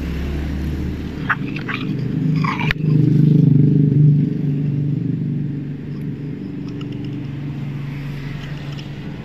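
A motor vehicle engine running with a low, steady hum that swells about three seconds in and then eases off. A few light clicks and one sharp knock come just before the swell.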